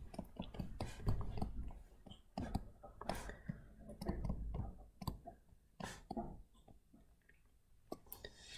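Stylus tapping and scratching on a tablet screen during handwriting: a run of faint, irregular clicks and short scrapes that stops for about a second and a half near the end.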